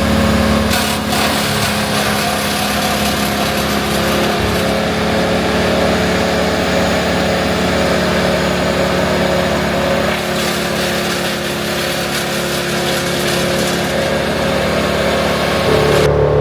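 Vermeer BC1000XL wood chipper running steadily, its engine and cutter drum holding an even pitch. The sound changes abruptly near the end.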